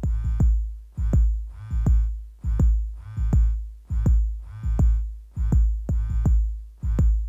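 Live electronic music from a pad controller and laptop: a slow, steady beat with a deep bass thump and a sharp click about every three-quarters of a second, each followed by a pitched synth note that fades away.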